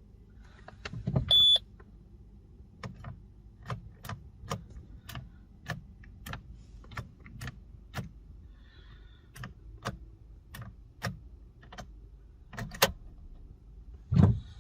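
Inside a Citroën C3 that won't start: a single short high beep about a second in, then a long run of sharp clicks, roughly two a second, and a heavier thump near the end.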